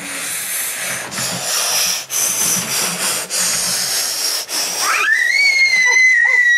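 A child imitating a steam locomotive with his mouth: long breathy 'chhh' chuffs broken about once a second, then from about five seconds in a high whistling call that rises and holds, like a train whistle.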